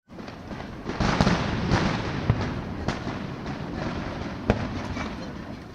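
Aerial fireworks bursting: a loud boom about a second in, then a string of sharp cracks over continuous crackling, with another loud bang about four and a half seconds in.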